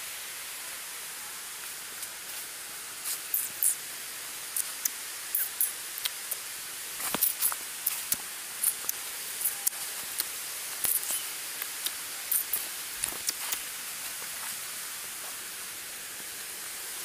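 Footsteps and brushing through dry leaves and undergrowth on a forest path: irregular short crackles over a steady hiss, thinning out near the end.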